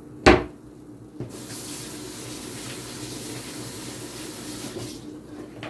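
A sharp knock, then about four seconds of steady hiss that starts and stops abruptly.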